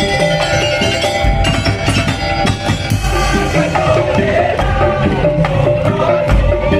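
Madurese daul (tong-tong) ensemble playing: knocking wooden slit drums and drums with deep bass-drum beats, under a held, wavering melody line.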